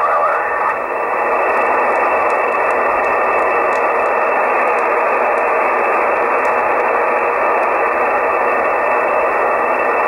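Soft66RTL2 software-defined radio tuned to the 20-meter amateur band in upper-sideband mode, giving steady band-noise static with no highs. A garbled sideband voice fades out in the first second as the tuning moves off the signal.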